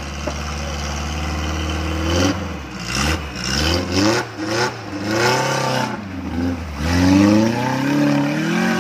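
Suzuki Jimny engine holding a steady note, then revving up and down again and again from about two seconds in, as the 4x4 struggles for grip on a steep, rutted mud climb.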